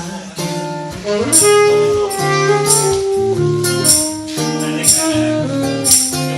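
Live band playing an instrumental passage of a pop song: a melody of held notes over bass, with bright jingling hits, like a tambourine, about once a second.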